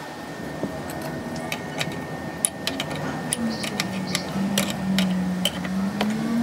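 Scattered metallic clicks and ticks of an open-end wrench and a banjo fitting against an aluminium diesel fuel feed pump held in a bench vise, as the fitting is put on and tightened. A motor vehicle's engine hums in the background, its pitch rising in the second half.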